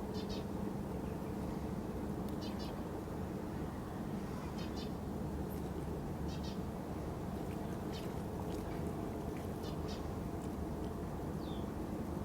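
Short, high-pitched bird chirps, a few calls every couple of seconds, over a steady low rumble.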